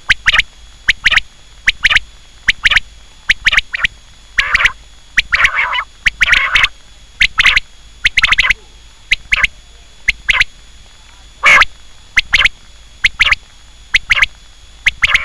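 Quail calling over and over: short, sharp, loud notes in quick pairs and threes, with a few longer, harsher notes in the middle.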